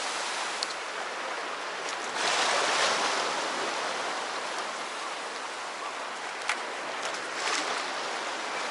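Sea waves washing on the shore, a steady rushing with one louder surge about two seconds in. A few faint clicks sound over it.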